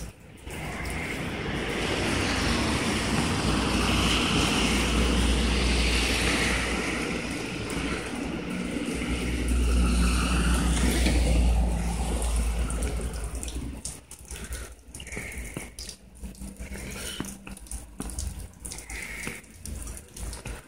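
Cars driving past on a rain-wet road, tyres hissing through the water over a low engine rumble, swelling twice and then fading about two-thirds of the way through.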